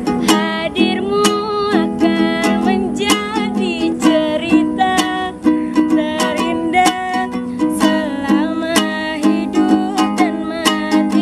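Ukulele strummed in a steady rhythm, accompanying a woman singing a slow pop song.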